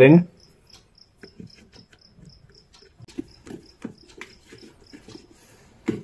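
Faint clicks and light knocks of a screwdriver tightening the screws back into an electric kettle's housing, with one louder click near the end. Behind it a faint high chirp repeats about four times a second.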